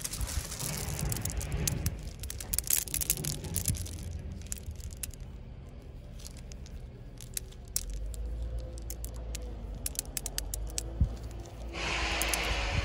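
A hand digs into 16–22 mm Rosso Verona marble gravel, the angular chips crunching and scraping, then sharp clicks as the stones knock together in the palm. Near the end there is a louder rush as the handful slides back onto the pile.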